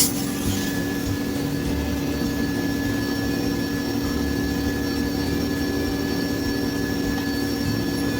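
A steady, machine-like hum with several fixed tones, opening with a sharp click.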